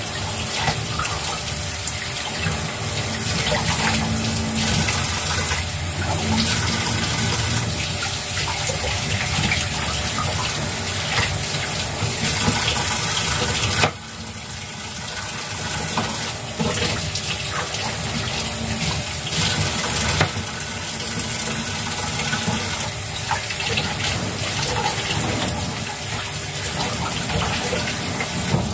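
Kitchen tap running steadily into the sink while slices of lotus root are rinsed by hand in the stream, with light handling clicks; the level dips suddenly about halfway through, then the flow carries on.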